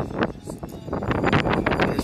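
Wind buffeting the microphone in uneven gusts, a rough noise that eases briefly about half a second in.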